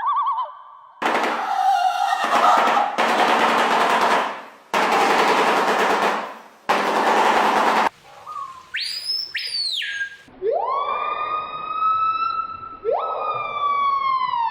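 A run of strange bird calls: a short warble, then four long harsh rasping bursts, then a rising and falling whistle, and finally long siren-like wails that glide up, hold and slide down twice.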